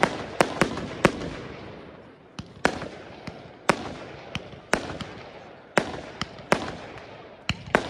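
Svea Fireworks 'Spartacus' 76-shot fireworks cake (20, 25 and 30 mm tubes) firing: a string of sharp bangs, roughly two a second at uneven spacing, some in quick pairs, each trailing off in a fading echo before the next.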